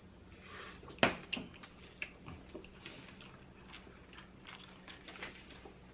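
Close-up eating of a seafood boil: chewing and mouth sounds with scattered sharp clicks, the loudest about a second in.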